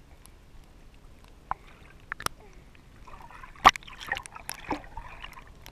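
Pool water splashing and lapping against a camera held at the water's surface, splashed up by a baby paddling toward the lens. Sharp clicks of water hitting the camera come now and then, and the splashing grows busier past the middle.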